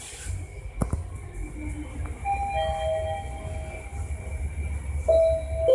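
Mitsubishi rope-traction passenger elevator car travelling between floors with a steady low hum. There is a click about a second in and a few faint tones midway. Near the end the louder first note of its arrival chime sounds.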